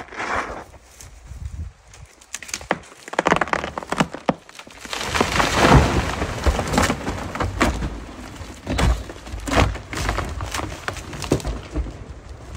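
A large tree falling after being cut: wood cracking and splintering as it starts over, then a heavy crash about five seconds in as the trunk hits the slope, followed by repeated thuds and cracks of breaking wood.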